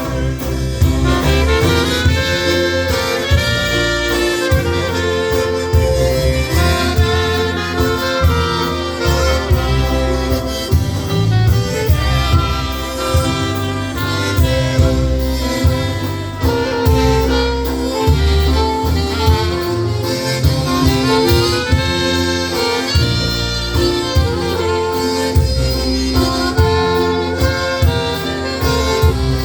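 Live polka band playing a waltz, an instrumental passage with no singing, over a steady, regular bass pulse.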